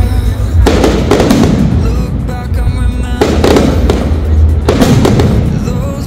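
Aerial firework shells bursting overhead: three big booms, about a second in, just after three seconds and near five seconds, each dying away over a second or so. Music plays throughout.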